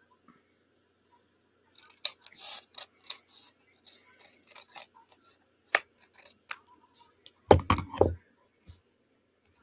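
Paper being handled and folded by hand: scattered crisp rustles and crinkles, then a quick cluster of loud knocks about seven and a half seconds in.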